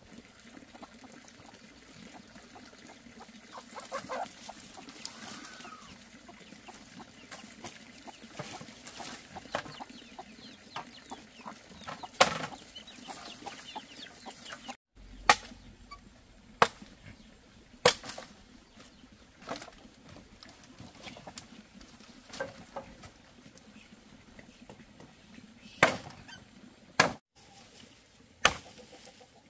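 Chickens clucking, with about ten sharp knocks spaced irregularly through the second half.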